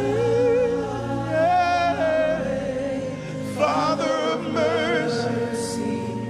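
Live gospel worship music: voices singing a slow, held melody with vibrato over sustained keyboard chords and bass.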